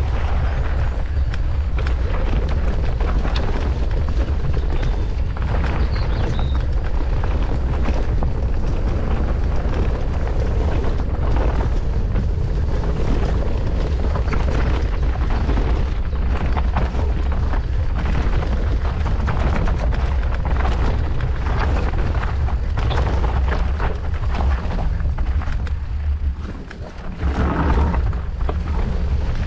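Mountain bike descending a rough enduro trail, heard from an onboard camera. Wind buffets the microphone with a heavy, steady rumble, over the crunch of the tyres and frequent clicks and knocks from the bike on stones. The rumble eases briefly near the end, as the speed drops.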